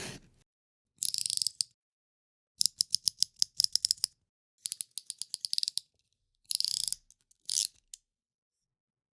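Snap-off utility knife (box cutter) with its blade slider being pushed and pulled, ratcheting in several short runs of rapid clicks with pauses between them. A scraping cut fades out just at the start.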